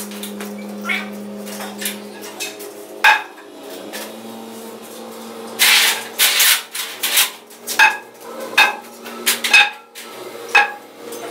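Irregular metal clanks and knocks, many with a short ring, as steel scaffolding and props are handled and climbed, over a steady low hum.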